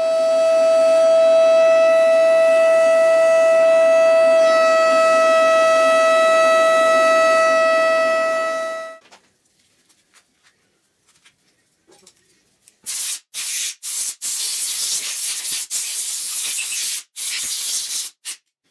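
A steady high mechanical whine over a hiss, stopping sharply about nine seconds in. After a pause comes a series of short, loud hissing bursts, about six of them.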